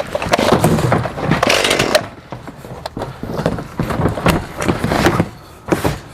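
Chainsaw cutting into a tree branch in uneven bursts for about two seconds, followed by a series of sharp cracks and knocks. The chain is dull and not cutting well.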